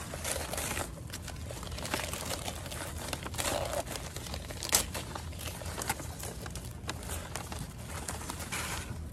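Newspaper packing paper rustling and crinkling as it is pulled off and crumpled by hand, a continuous run of crinkles with sharper crackles now and then.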